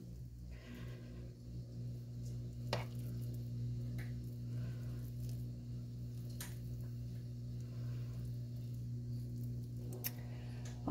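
A spoon spreading mashed potatoes in a glass baking dish: soft squishing, with a few light clicks as the spoon knocks the glass. Under it runs a steady low hum.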